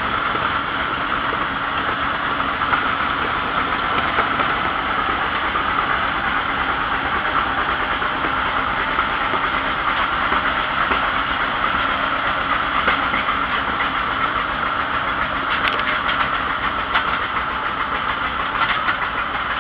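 Vintage farm tractor engine running steadily at an even speed while driving, heard up close from on board.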